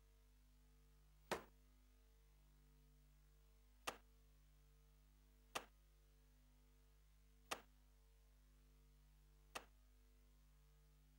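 Five sharp single ticks, irregularly spaced about two seconds apart, over a faint steady electrical hum that is otherwise near silence.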